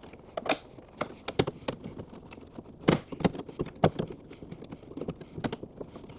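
Irregular clicks, knocks and taps of a tight new rubber window channel seal being pushed and worked into a truck door's window channel, with one louder knock about three seconds in.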